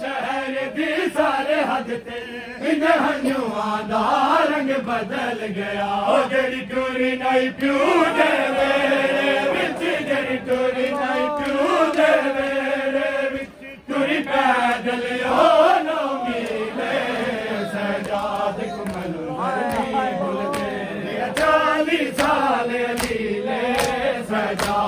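A group of men chanting a noha, a Shia lament, together in long sung lines that rise and fall, with a short break about halfway through.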